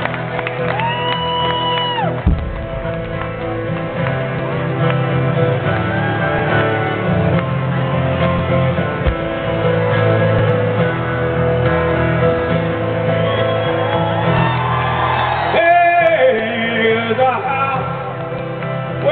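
Live rock band playing in a concert hall: held chords over a steady bass line, with a male voice singing near the end.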